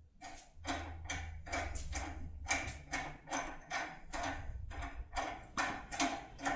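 Foil lockpick being rocked up and down inside a TESA T10 cylinder lock under turning tension: a steady run of short metallic scrapes, about three a second.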